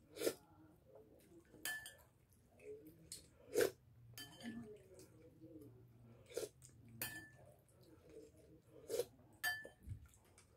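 Eating with a metal spoon: the spoon clinks against ceramic plates and a bowl about seven times, with chewing between the clinks.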